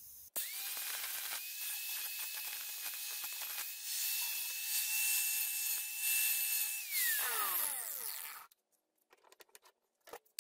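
Angle grinder spinning up and sharpening the edge of a steel lawn mower blade held in a vise: a steady high whine with grinding noise. About seven seconds in the grinder is released and winds down with a falling whine, followed by a few light clicks.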